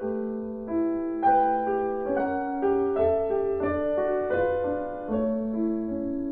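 Piano music starting out of silence: a slow melody of single notes over held lower notes.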